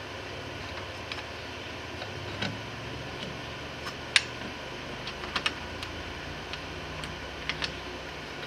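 Scattered light clicks and taps of metal parts and tools being handled during work on a truck's transmission cooler lines, the sharpest about four seconds in and a quick run of them around five seconds, over a steady background hiss.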